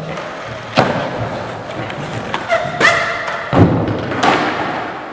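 Four sharp thumps and clacks of hard objects hitting a concrete floor, spread across a few seconds, with a short pitched sound just before the second one.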